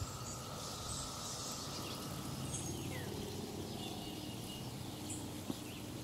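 Quiet outdoor ambience: a faint, steady background hiss with a bird's short falling whistle about two and a half seconds in.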